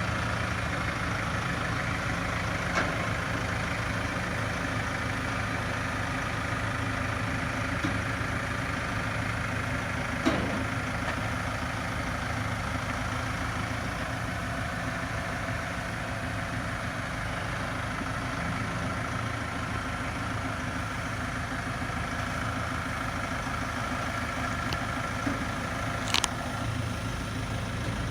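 Tractor engine running steadily at idle, with a few sharp knocks, the loudest near the end.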